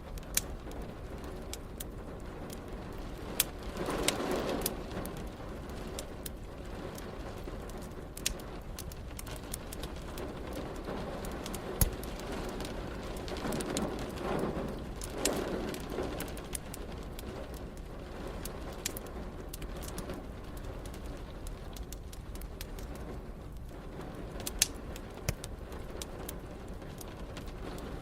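Wood fire crackling with scattered sharp pops over a steady hiss of rain. Two soft swelling sounds come in, about four seconds in and again around fourteen seconds.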